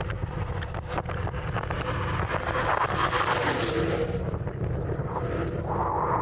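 Wind buffeting the microphone with a heavy low rumble that grows louder about two seconds in, over the crunch of footsteps on a frozen trail. A faint steady hum shows up in the middle.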